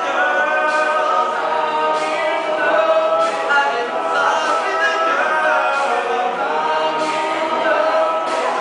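All-male a cappella group singing a pop song: a male soloist's voice leads over the group's sustained vocal chords, with no instruments.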